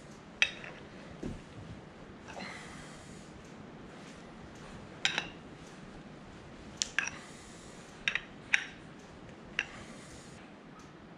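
Sharp metallic clicks and clinks of a spanner against the steel gland of a hydraulic ram as new seals are worked into it, about seven in all and irregularly spaced, with a few breaths in between.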